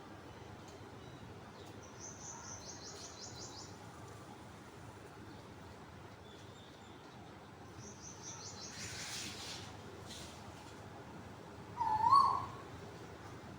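Birdsong: twice a high, fast trill of rapid stepped notes, and near the end one loud, short wavering call, the cuckoo's cooing.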